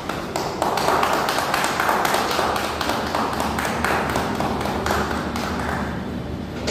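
A small group clapping, a dense patter of hand claps that builds in the first second and then holds steady.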